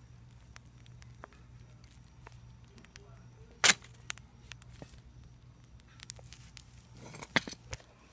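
Burning embers crackling with scattered small pops, and one sharp loud pop a little past halfway that throws up sparks. A few more pops come close together near the end.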